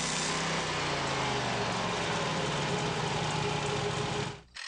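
Portable band sawmill's engine running steadily, its pitch sagging slightly, then cutting off abruptly near the end.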